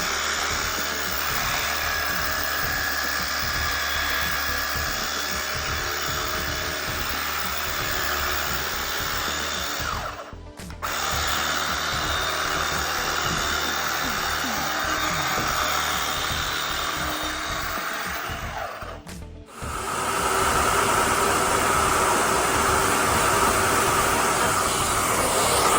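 Truck-mount carpet cleaning machine running at full power through the cleaning wand: a steady, loud suction whine and hiss. It breaks off sharply twice, about ten and nineteen seconds in, and comes back slightly louder.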